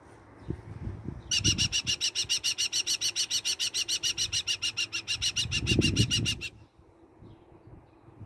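New Zealand falcon giving its rapid, harsh kek-kek-kek chatter, about eight evenly spaced notes a second, for about five seconds before stopping abruptly. Low thumps and rustling run underneath and peak just before the call ends.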